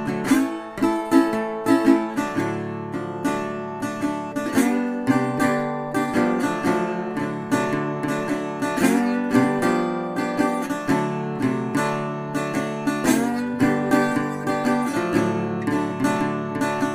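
Background music: a strummed acoustic guitar playing chords over a steady bass line.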